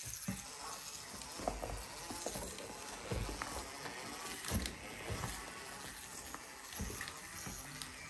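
Radio-controlled rock crawler's electric drivetrain running mechanically as it crawls over a pile of rubber tyres, with irregular knocks and clunks as the wheels bump and drop.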